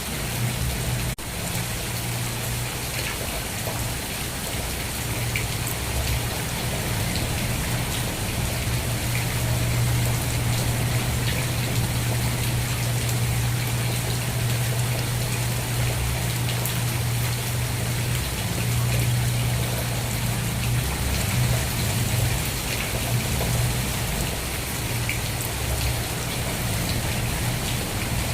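Steady rain falling and pattering on a surface, with a steady low rumble underneath and a brief dip in level about a second in.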